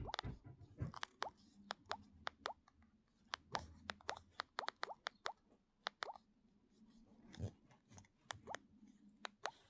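Alcatel OT-1066G mobile phone playing a ringtone made of water-drop plops: many short, quick rising blips at an uneven pace.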